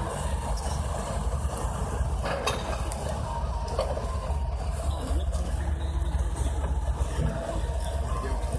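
Ponsse Buffalo forwarder's diesel engine running steadily with a deep, low drone, with a couple of short knocks about two and three seconds in.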